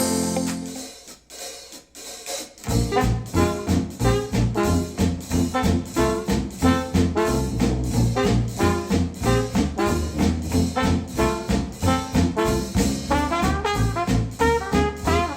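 Recorded music played through Wharfedale Denton 80th bookshelf speakers powered by a Sony STR-DH190 receiver: one track fades out in the first second, a short quiet gap follows, and about two and a half seconds in a new track starts with brass over a steady pulsing bass beat.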